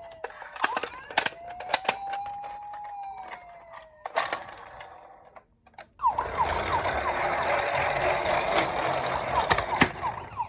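An emergency-vehicle wail siren rising and falling in pitch twice over sharp clicking and rattling, stopping about four seconds in. After a brief near silence, a louder, noisier stretch with quick short falling chirps begins about six seconds in.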